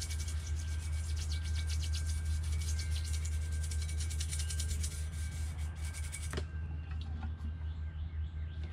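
Background music with a steady deep bass, over rapid brush scrubbing on an aluminium rudder bearing housing being cleaned out with acetone; the scrubbing stops about six seconds in.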